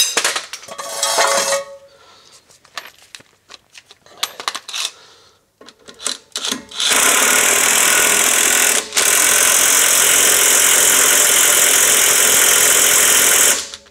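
Metal tools clanking, then an impact wrench running hard for about seven seconds, with one short break partway, as it tightens a lower control arm bolt on a solid rear axle.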